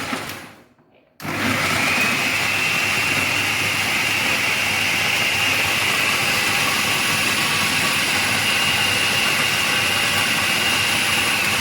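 Electric food chopper running as it chops onion and green chilies, with a steady high whine. The motor winds down and stops within the first second, then starts again just after and runs steadily.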